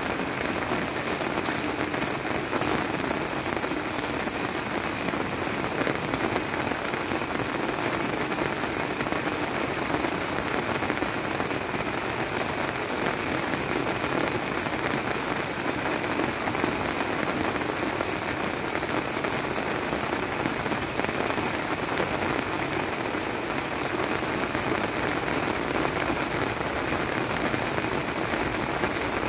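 Steady rain of the Korean summer rainy season (jangma) falling: an even, unbroken hiss with scattered faint drop ticks.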